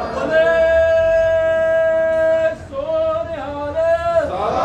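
A voice singing a long, steady high note, then a few shorter, lower notes, sliding down in pitch near the end.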